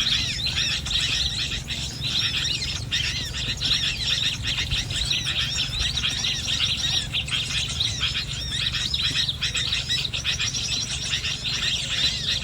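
Many small birds chirping and twittering together in a dense, unbroken chatter of overlapping high chirps, over a steady low hum.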